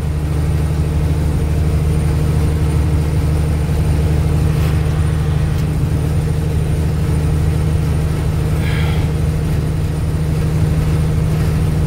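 Semi truck's diesel engine running steadily at highway speed, heard from inside the cab as a deep, even drone over road noise.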